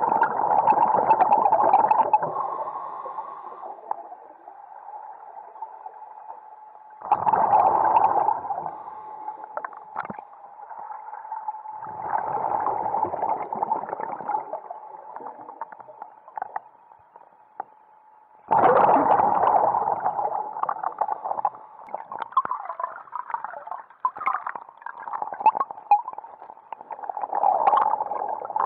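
Scuba diver's exhaled bubbles gurgling from the regulator, heard underwater through the camera housing, in loud bursts every five or six seconds with a faint steady tone between breaths.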